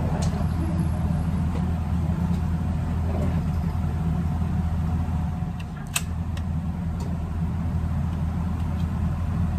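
Steady low motor-vehicle hum, like a car engine running, with one sharp click about six seconds in.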